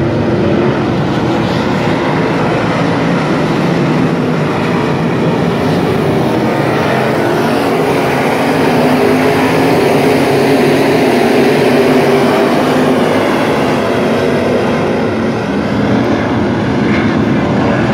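A field of dirt-track modified race cars running their engines as the pack circles the dirt oval: a loud, steady drone that swells a little about halfway through.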